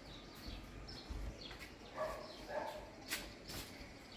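Faint background with no tool running: scattered bird chirps, two short animal calls about two seconds in, and a few light clicks or knocks.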